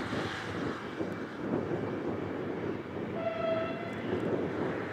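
A short single-note horn blast from a LINT41 diesel railcar, about three seconds in, over a steady rushing noise.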